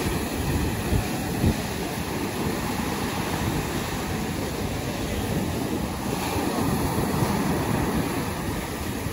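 Surf breaking and washing up a sandy beach, a steady rushing wash, with wind buffeting the microphone in low rumbling gusts.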